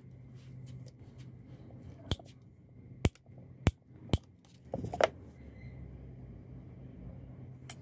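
Hand wire cutters snipping through thick insulated copper cable: a handful of sharp snaps, about five between two and five seconds in and one more near the end.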